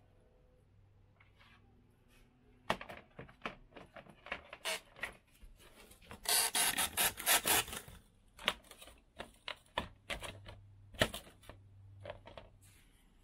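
Handling noise from a plastic storage bin and foam packing pieces: scattered knocks and clicks, with a dense stretch of rubbing and scraping about six to eight seconds in.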